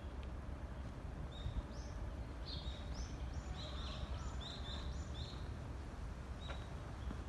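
Small songbirds chirping, a quick run of short high repeated notes about a second in that fades out after about five seconds, over a steady low outdoor rumble.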